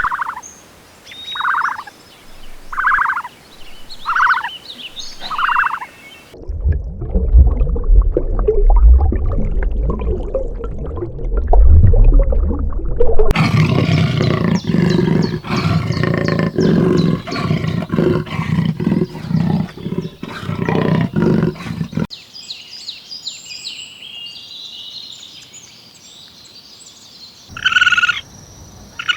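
A string of different animal sounds in turn: five evenly spaced calls, then a low rumbling roar, then a dense, loud stretch of many calls, then high chirping, with a new series of calls starting near the end.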